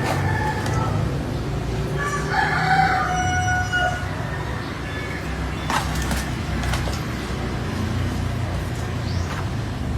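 A drawn-out animal call lasting about two seconds, ending on a held note, over a steady low rumble.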